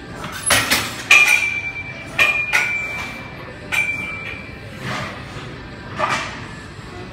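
Metal gym equipment clanking: a string of sharp metal knocks, several of them followed by a clear ringing tone that dies away over about a second.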